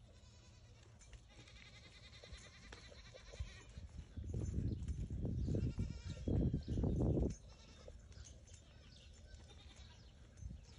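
Young chimpanzee vocalising, a few loud, low, pulsing calls in a run from about four to seven seconds in.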